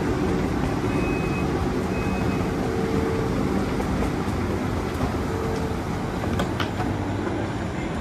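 VR Pendolino Sm3 electric train standing at the platform with its equipment running as a steady hum. Two short high beeps come about a second in and again a second later, and a few sharp clicks near the end.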